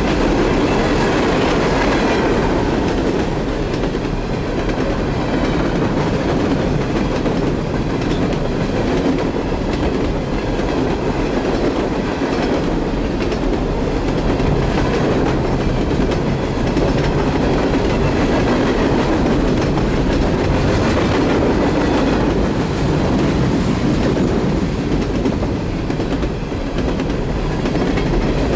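Freight cars of a Norfolk Southern mixed freight train rolling past at a steady, loud level, their wheels running over the rails.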